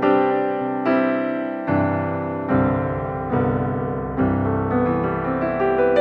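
Slow, soft piano music with single notes struck and left to ring, a new note about every second, and lower notes joining about two seconds in.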